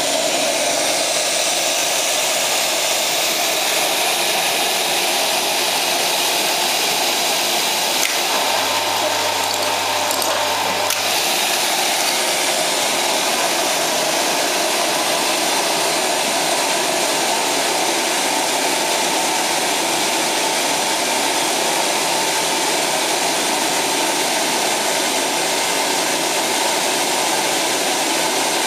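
Pellet burner running: a steady, even blowing rush from its combustion fan and flame, with no change in level.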